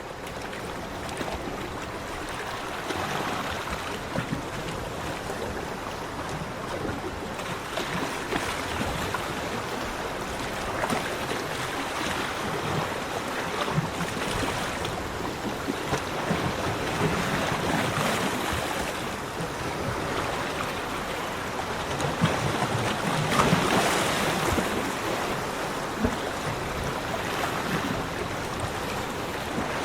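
Sea waves breaking and washing up a beach in a continuous rushing noise that swells and eases, with stronger surges every few seconds.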